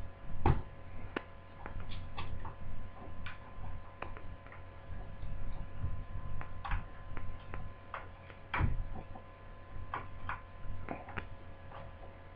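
Irregular light clicks and taps of a small screwdriver working the screws out of a laptop's plastic screen frame, with screws and parts being handled. A faint steady hum sits underneath.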